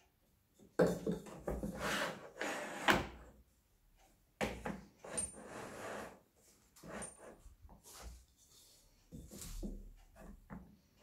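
Plywood parts of a homemade wooden lathe being handled and adjusted: wood sliding and knocking against wood in several short bursts, with sharp knocks about a second in, about three seconds in and a little after four seconds.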